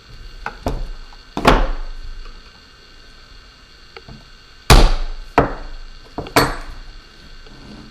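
Sharp clicks and knocks from handling a DJI Phantom 4 Pro's plastic shell and small tools while prying a little light piece out. There are about half a dozen separate hits, the loudest about a second and a half in and again near five seconds in.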